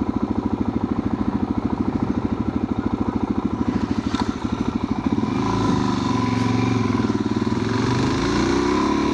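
Motorcycle engine running at low revs with an even, pulsing beat; about halfway through the beat smooths out and the pitch rises as the bike accelerates.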